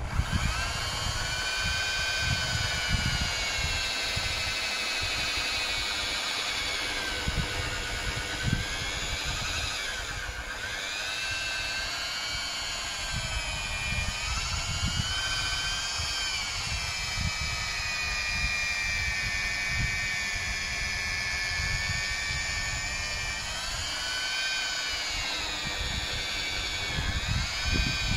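Electric rotary polisher running with its pad pressed on a plastic headlight lens, a motor whine that switches on at the start and dips and rises in pitch several times as the pad is loaded. This is the machine-polishing stage of a headlight restoration after wet-and-dry sanding.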